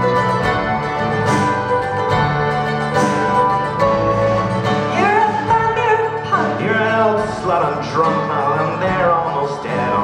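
A live folk-pop band playing: acoustic guitar and accordion, with a woman singing into a microphone, the voice coming in about halfway through. It is heard from among the audience.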